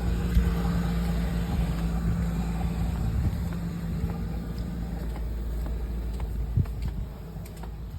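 Motor vehicle engine idling with a steady low hum that drops away near the end.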